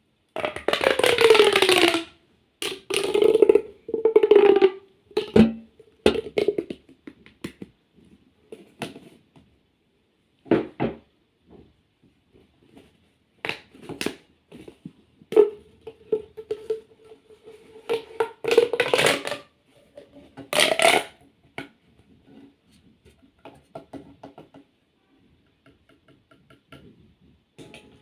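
A fidget toy being handled: irregular squeaks, some sliding down in pitch and one held steady, mixed with sharp clicks and scrunching noises.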